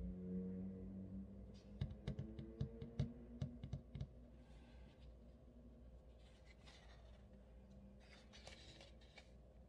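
Faint handling of paper and stickers: a low hum in the first second or so, then a quick run of about a dozen light clicks and taps, then soft paper rustling as sticker book pages are turned.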